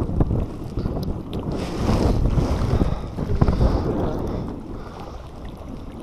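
Gusty wind buffeting the microphone over choppy sea, with water splashing and hissing against an inflatable boat, strongest in the middle seconds.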